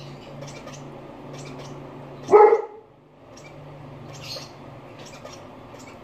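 A dog barks once, loud and short, a little over two seconds in. Under it, faint quick high squeaks come about twice a second from a lovebird chick taking formula from a feeding syringe, over a low steady hum.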